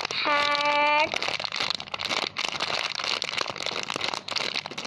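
Rapid, irregular crinkling and crackling as a hard foam squishy toy is squeezed and handled close to the microphone.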